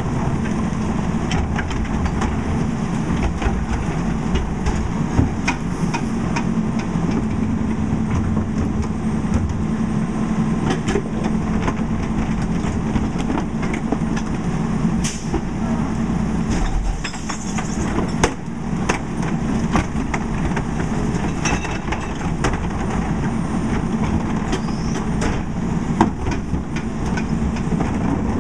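Crane Carrier LET2 garbage truck with a Heil PowerTrak rear-loader body running steadily while its packer and cart tipper work, with repeated clanks and knocks as carts are tipped and trash drops into the hopper.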